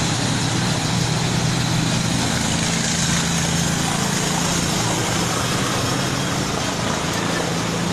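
A steady low engine hum under a constant rushing noise, unchanging throughout.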